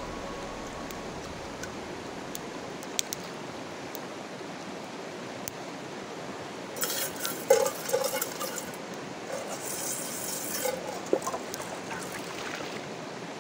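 Shallow stream running steadily over stones while a metal pot is dipped and swirled in the water, with splashing and light metallic clinks, busiest from about seven to eleven seconds in.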